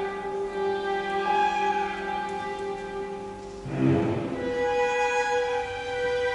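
Contemporary opera orchestra playing slow music with held string notes, with a louder, fuller accented chord about four seconds in.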